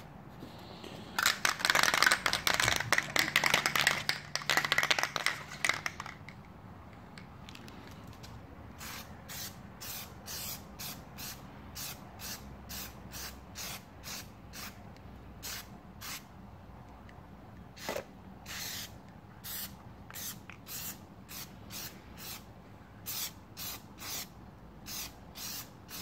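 Aerosol can of Plasti Dip rubber coating spraying a final light coat in many short hisses, about one or two a second, through the second half. Near the start there is a louder, denser noise lasting about five seconds.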